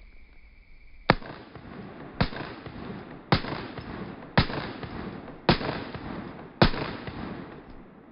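Six pistol shots fired at a steady pace, about one a second, each followed by a short echo.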